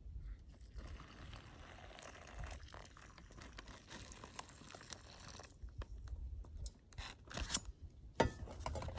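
Faint crinkling and tearing of a plastic food packet being handled, in scattered short crackles.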